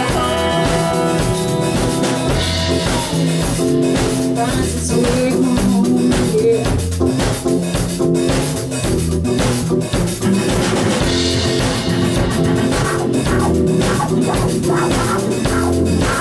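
Live band playing a steady groove: electric bass and drum kit with acoustic guitar.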